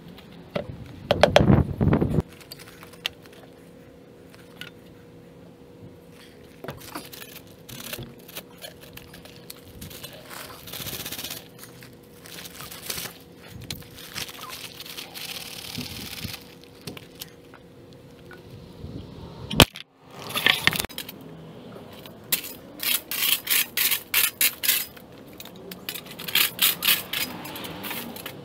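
Hand work setting a fence post: knocks and clatter at the post hole, dry concrete mix and gravel pouring and scraping around the post, then runs of quick scrapes and clinks of a shovel working the river rock, about three a second.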